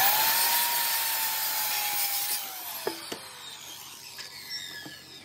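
Corded circular saw cutting through a wooden board, its motor running at speed through the cut. About two seconds in the cut ends and the trigger is released, and the blade spins down with a falling whine. There are a couple of sharp knocks about three seconds in.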